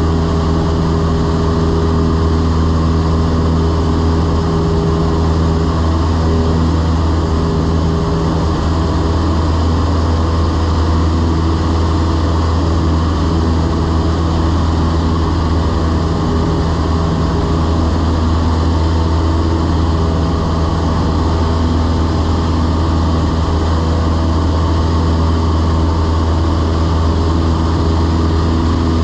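Cessna 172's piston engine and propeller running steadily in flight, heard from inside the cabin as an even low drone with airflow hiss.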